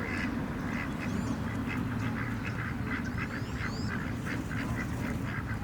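Ducks and geese calling over and over, with a few high chirps from a small bird about three seconds in, over a steady low rumble.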